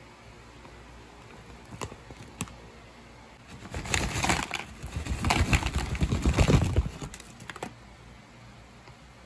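Nacho Cheese Doritos tortilla chips tipped out of their crinkly bag into a container, a crackling clatter of chips and rustling bag for about three seconds. There are a few single clicks of chips or bag before and after.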